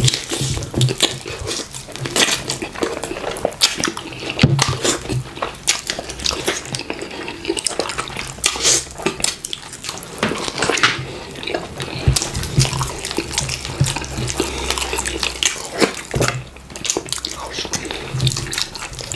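Close-up wet eating sounds from two people eating fufu and okra soup with chicken by hand: a dense run of slurps, lip smacks and chewing clicks.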